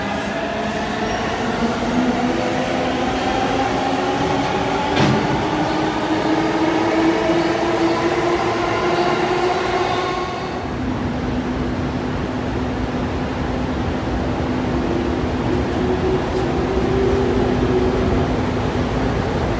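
Electric train's traction motors whining, the whine rising slowly in pitch as the train gathers speed, with one sharp clack about five seconds in. About halfway through, the whine changes suddenly to a steadier, lower hum over rolling rail noise.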